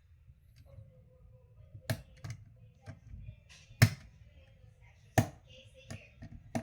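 About five sharp clicks and knocks at uneven intervals, the loudest about four seconds in: small parts and tools being handled during the speedometer cluster repair, over a low steady hum.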